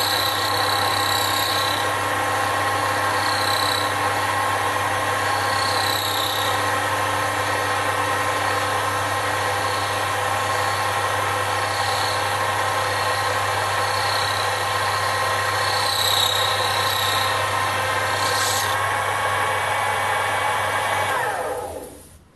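Sherline micro lathe running steadily while a carbide-insert boring bar cuts the inside of a bronze bush, a steady motor hum with short high squeaks coming and going. Near the end the lathe is switched off and the sound dies away within about a second.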